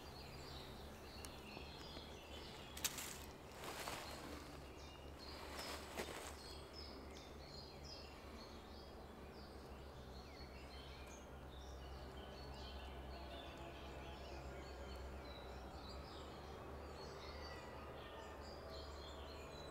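Quiet woodland ambience: faint birds chirping over a low steady hum, with a few soft clicks about three and six seconds in.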